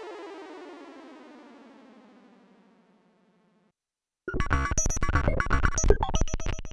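Korg Minilogue XD synthesizer factory presets. A rich, many-harmonic tone glides slowly downward in pitch and fades out over the first few seconds. After a short silence, about four seconds in, a new patch starts with a loud, dense stream of rapid percussive hits that dies away near the end.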